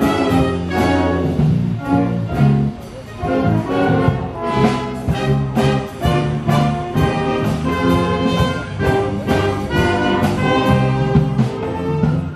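Wind band playing, clarinets and brass together over a bass line, with a steady beat.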